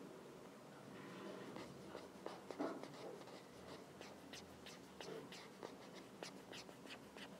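Faint tapping and scratching on a touchscreen while drawing: short ticks, sparse at first, then several a second from about the middle on.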